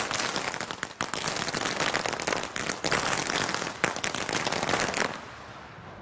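Feu de joie: a rank of guardsmen firing blank rounds from SAR 21 rifles one after another down the line, a rapid ripple of shots lasting about five seconds, then dying away.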